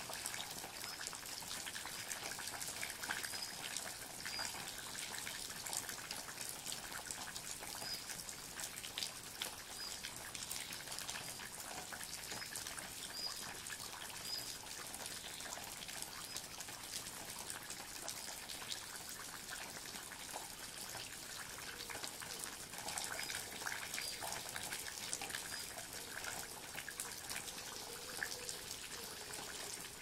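Steady rainfall with dense dripping and pattering of drops. Short high chirps from a small animal come now and then.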